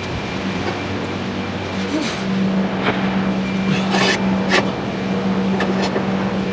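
A steady mechanical hum with several short knocks and clatters over it, the loudest about four seconds in.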